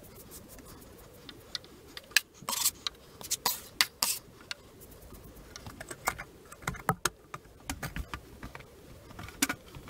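Irregular small clicks, taps and scuffs of handling, with a run of louder scraping rustles between about two and four and a half seconds in.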